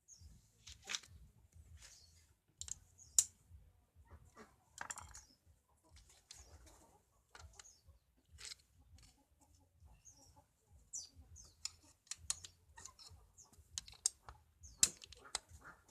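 Scattered sharp clicks and clinks at irregular intervals, as of hand tools and metal parts being handled while a motorcycle engine is taken apart, over a faint low rumble.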